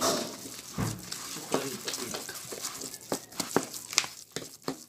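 Spoon stirring and mashing grated sweet potato mixed with flour and sugar in a bowl: irregular scrapes and clicks of the spoon against the bowl.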